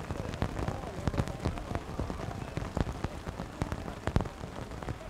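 Open-field sound at a rugby scrum: faint distant shouts of the players over a constant crackle of small clicks and a low rumble on the microphone.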